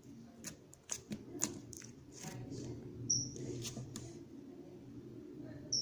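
Slime being pressed and worked by hand, making a string of small sticky clicks and pops. Two brief high chirps sound about three seconds in and near the end.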